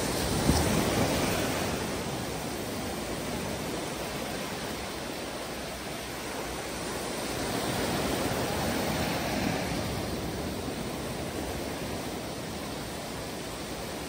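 Small ocean waves breaking and washing up a flat sandy shore, a steady hiss of surf that swells louder about a second in and again around eight seconds.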